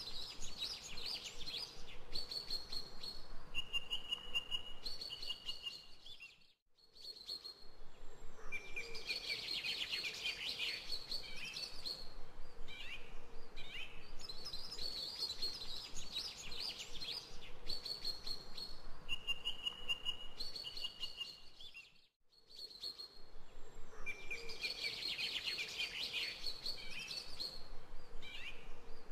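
Looped recording of birdsong: chirps and steady whistled notes that repeat in the same pattern about every fifteen seconds, cutting out briefly twice where the loop restarts.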